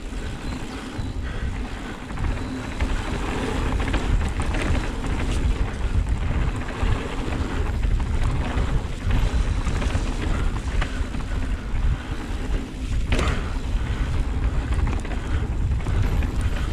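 Mountain bike riding fast down a dirt trail: tyres rolling over the ground with scattered knocks and rattles, and wind buffeting the microphone.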